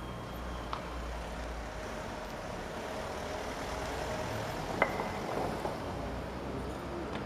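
Steady city background noise, a low rumble and hum like distant traffic. A faint click comes about a second in, and a sharper, louder click near the middle.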